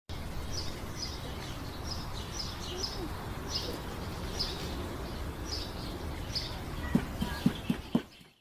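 Small birds chirping again and again over a steady outdoor background hum, with a few sharp taps near the end.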